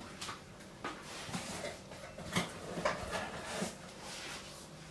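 Faint, scattered knocks and small clatters, five or so spread over a few seconds, of someone moving about a kitchen.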